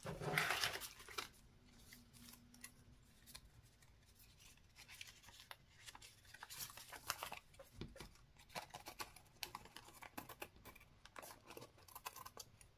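A drawer sliding shut in the first second, then scissors snipping paper in a run of small, irregular cuts.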